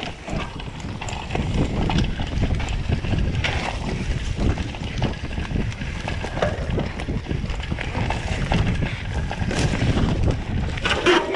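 Mountain bike descending a rough dirt trail: wind buffeting the microphone over a steady rumble of tyres and rattling of the bike's frame and parts on roots and bumps. A louder burst of clattering and knocks near the end as the bike goes down.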